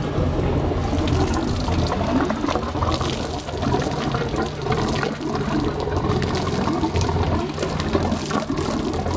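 The warmed-up inboard engine of a 1987 Ski Centurion ski boat idling steadily on the trailer, with water gushing and splashing from its exhaust outlets onto the concrete under the swim platform.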